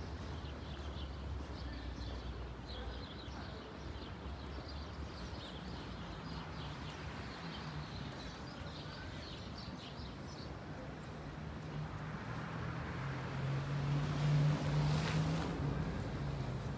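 Motor vehicle driving past on a city street, its engine drone building to its loudest about three-quarters of the way through and then easing off, over steady traffic hum. Light crunching of footsteps on snow runs through the first part.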